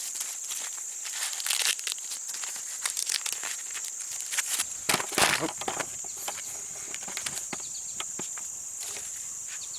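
Dry corn husks and leaves crackling and tearing as an ear of dent corn is handled and husked, loudest about five seconds in, over a steady high-pitched hiss.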